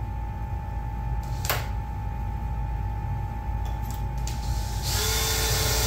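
Cordless drill running with a steady whine as a small bit drills a pilot hole through the Jeep Cherokee's sheet-metal hood. There is a sharp click about a second and a half in, and about five seconds in the sound turns louder and harsher.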